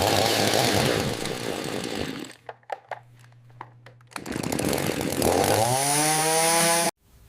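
AI-generated chainsaw sound: a chainsaw cutting, then dropping about two seconds in to a low hum with a few sharp clicks, then running hard again with its pitch rising before it cuts off suddenly near the end.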